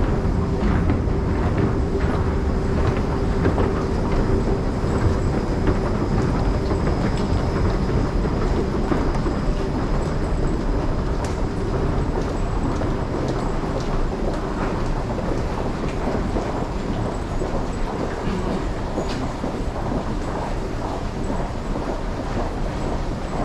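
Electric commuter train running on the rails: a steady rumble with a low hum that fades about ten seconds in.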